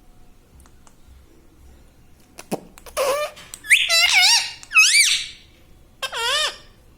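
Pet ring-necked parrot giving a run of shrill, squeaky calls that waver sharply up and down in pitch, starting about three seconds in, followed by one more call near the end.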